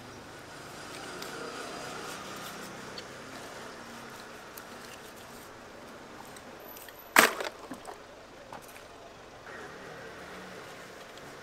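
Steady outdoor background noise with one sharp knock about seven seconds in, followed by a few light clicks, while slabs of ocean sunfish flesh are being handled.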